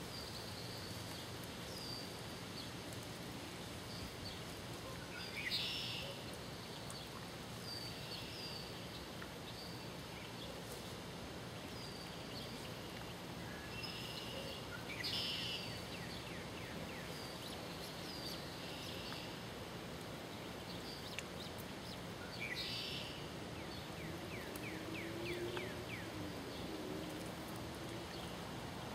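Mallard ducklings peeping: short high peeps every second or two, with louder bursts of calls three times, over a steady outdoor background hum.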